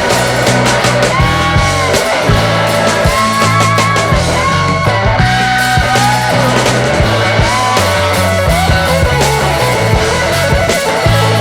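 Background rock song: a sung melody over electric guitar, bass and a steady drum beat.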